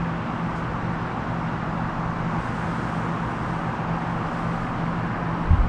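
Steady background machine hum with a low droning tone under an even wash of noise, and a low thump near the end.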